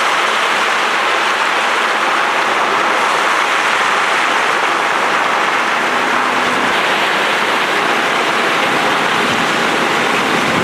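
Steady, loud rushing noise of a storm, unbroken and even throughout.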